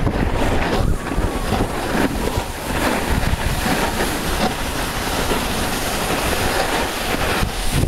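Wind buffeting the microphone: a steady, uneven rush with a heavy low rumble.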